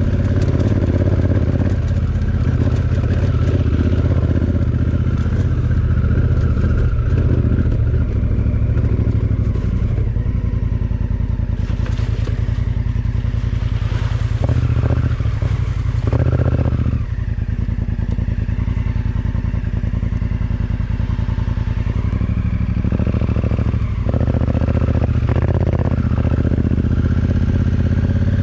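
Honda Africa Twin Adventure Sports' parallel-twin engine running steadily while the bike is ridden, with scattered clatter and knocks from the machine on the track. The engine sound dips briefly about two-thirds of the way through, then picks up again.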